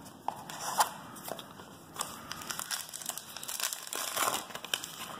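Crinkling of a 2017 Topps Allen & Ginter trading card pack's wrapper as it is pulled from the box and torn open, a string of irregular crackles that is loudest a little after halfway.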